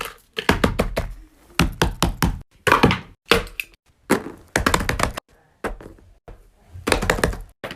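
Fidget toys being handled: irregular clusters of sharp taps and clicks, with short pauses between them.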